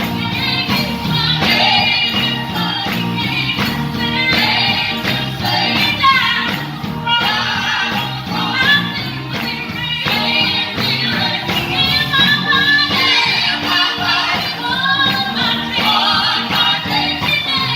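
Gospel choir singing over a band, with a steady beat and tambourine-like percussion.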